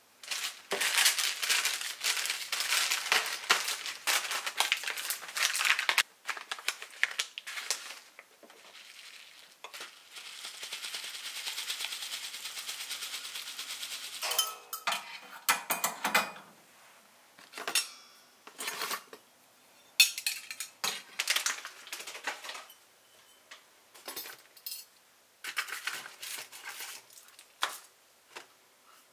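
Foil soup sachets and kitchen containers being handled on a counter: the packets crinkle for the first few seconds, then come separate light knocks and clinks as things are picked up and set down.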